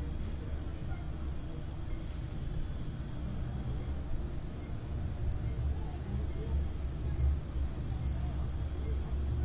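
A high-pitched chirp pulsing evenly about two to three times a second, over a low steady hum.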